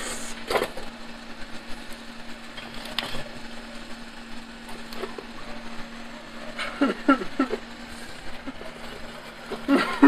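A small electric motor humming steadily at one low pitch, with a few light knocks as sand-filled wooden molding flasks are handled.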